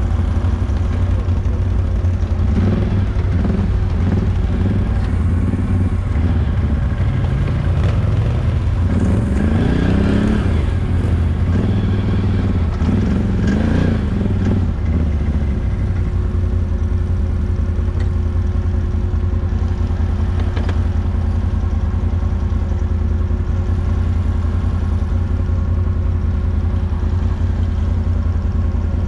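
ATV engine idling steadily, with a few brief rises and falls in engine sound in the first half.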